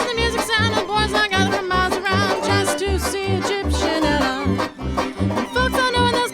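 Background music: a lively tune with a steady bouncing bass beat about twice a second under a wavering lead melody.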